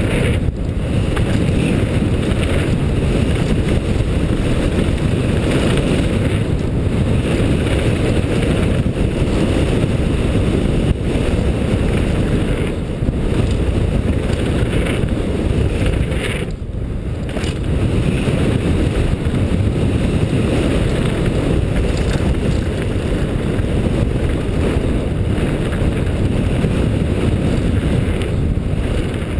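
Steady low rumbling wind noise on a helmet-mounted GoPro as a 2010 Cove Shocker downhill mountain bike rides fast down a dirt trail, mixed with the bike and tyres rattling over rough ground. There is a brief lull about 17 seconds in.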